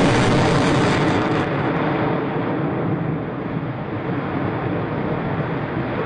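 F-22 Raptor's twin Pratt & Whitney F119 turbofans, a loud jet roar from an aircraft in flight; after about a second and a half the sharp upper hiss drops away and the roar eases slightly as the jet draws off.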